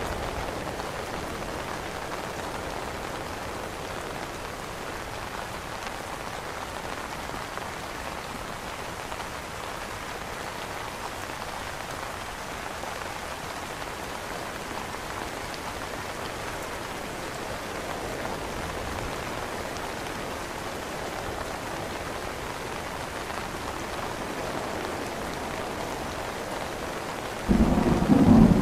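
Steady rain pattering on an umbrella canopy. Near the end a sudden, much louder clap of thunder breaks in with a deep rumble over the rain.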